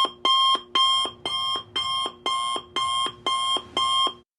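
Timer alarm marking the end of a 25-minute Pomodoro work period: a loud beep repeating about twice a second, each beep stepping down to a lower tone at its end. It cuts off suddenly near the end.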